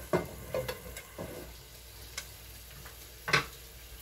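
A glass pot lid clinks down onto a frying pan, followed by a few more knocks and clicks of cookware, with the loudest knock near the end. Bok choy sizzles faintly in the pan underneath.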